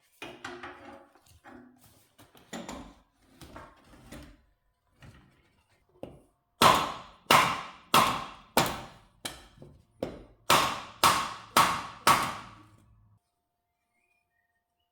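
Metal parts clunking as they are handled, then about nine sharp hammer blows on metal, roughly two a second with a short pause midway, each ringing faintly, as the lathe's motor bracket is knocked into place.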